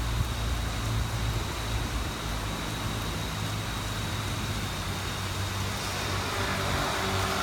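Steady rainfall making an even hiss, with a low rumble underneath and a faint steady high whine.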